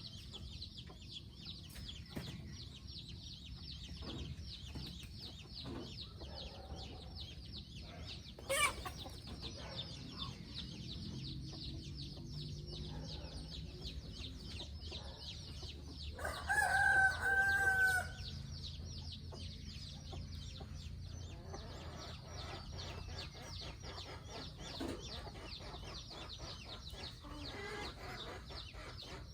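Free-range chickens clucking, and a rooster crowing once for about two seconds just past the middle, the loudest sound, over a fast, steady, high-pitched pulsing in the background.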